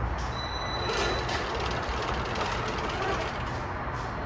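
RC4WD TrailFinder 2 K10 scale rock crawler's electric motor and geartrain whirring steadily as it crawls, with a brief high whine about half a second in.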